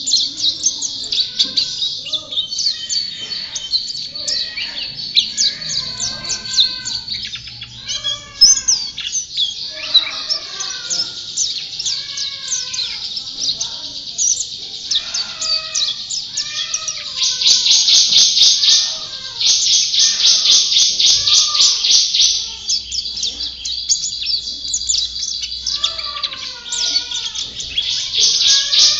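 A white-eye (pleci) singing vigorously and without pause: a high, rapid twittering song broken by long, fast trill passages, the loudest a little past halfway. Lower-pitched chirping calls run underneath.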